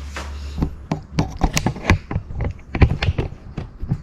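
Irregular taps and clicks of a bicycle front fork being handled, about a dozen short knocks at uneven spacing.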